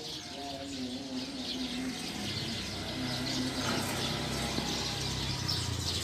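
A flock of Eurasian tree sparrows chirping together in a dense, continuous chatter as they gather in a tree to roost.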